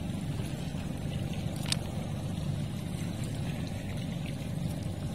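Steady low drone of a motorboat engine, with a single sharp click under two seconds in.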